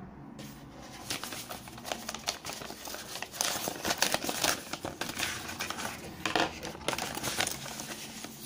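Paper envelope crinkling and rustling as it is handled and opened by hand, starting about half a second in.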